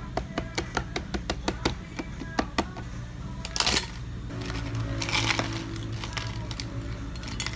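A long stirrer clicking quickly against the inside of a clear plastic cup as syrup is stirred, about a dozen ticks. Then ice cubes rattle into the plastic cup: a short clatter a little after three and a half seconds and a longer pour from an ice scoop about five seconds in.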